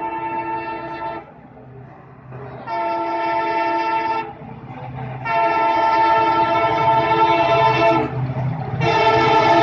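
EMD diesel locomotive's multi-tone air horn honking in long blasts, four in all with short gaps between, over the low rumble of the running train. The blasts grow louder, the last one the loudest.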